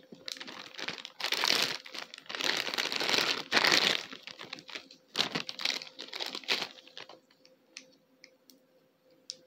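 Plastic bag of a Happy Meal toy crinkling in repeated bursts as it is handled and opened by hand, thinning out to a few small clicks and taps in the last couple of seconds.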